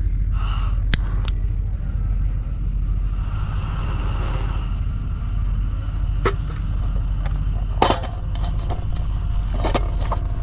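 A steady low rumble with a few sharp clicks and knocks, bunched together in the last couple of seconds.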